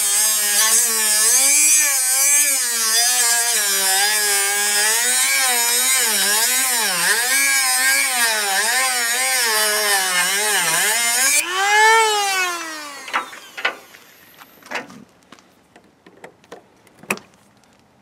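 Dremel rotary tool with a cut-off wheel grinding into a metal disc padlock: a bright hiss of the wheel on the metal over the motor's whine, whose pitch wobbles up and down as the load changes. About eleven seconds in the grinding stops and the motor rises briefly in pitch, then winds down. A few sharp clicks and taps follow.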